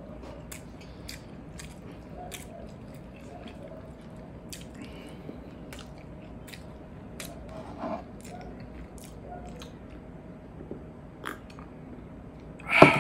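Close-miked mukbang eating: wet chewing with scattered mouth clicks and smacks as a person eats salted egg shrimp and meatballs by hand. A single louder sharp sound comes just before the end.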